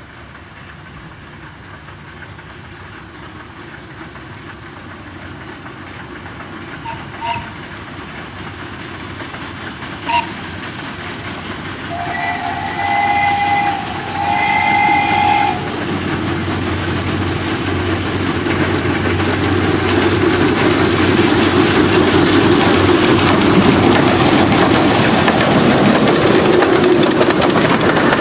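Narrow-gauge steam locomotive approaching and passing: two brief whistle toots, then two longer whistle blasts a moment apart. The sound of the running train grows steadily louder as the locomotive and its coaches come close and go by.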